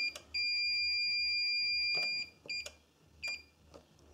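Fluke 1651B multifunction installation tester beeping as its test button is pressed on the continuity range. One steady electronic tone sounds as a short beep, then a long beep of about a second and a half, then three short beeps.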